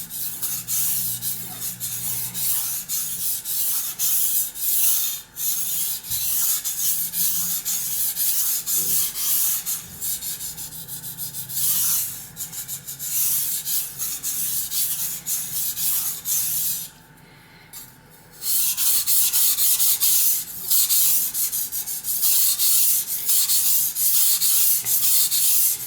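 Knife blade stroked back and forth on a wet, soaked Suehiro SKG-38 water stone with light pressure: a rapid, steady wet scraping, pausing briefly about two-thirds of the way through. The blade is a soft 3Cr13 stainless cleaver on the stone's 1000-grit side, which is soft and quickly forms a thick slurry.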